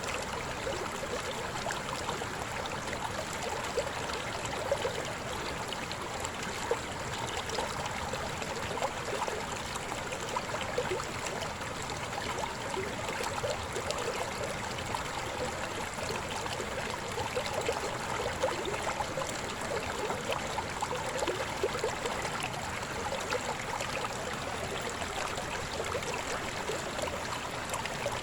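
Shallow river babbling over stones: a steady rush of water with many small splashes and gurgles.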